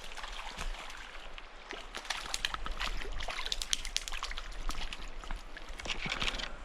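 Irregular quick splashes and sloshing of creek water over the stream's steady flow, from a hooked trout thrashing at the surface on the line.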